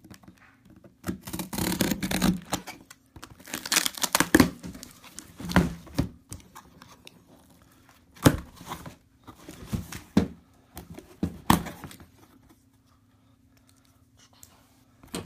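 Cardboard shipping box being cut open with a knife, tape and cardboard tearing in a series of short ripping rasps and knocks. The sounds stop about twelve seconds in.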